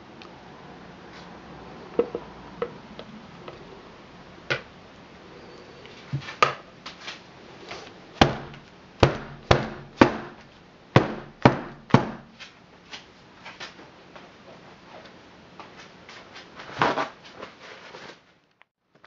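Wooden loaf soap mold, filled with soap batter, knocked down again and again on a tabletop: a run of sharp wooden thumps, heaviest and quickest in the middle, with lighter knocks before and after.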